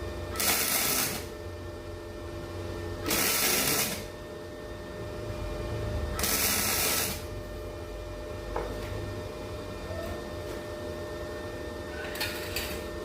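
MIG welder laying three short tack welds: three bursts of arc noise, each just under a second long and about three seconds apart, over a steady hum.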